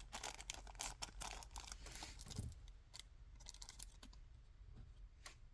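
Faint, irregular light clicks and taps of small plastic model parts being handled and fitted, with a little rustling.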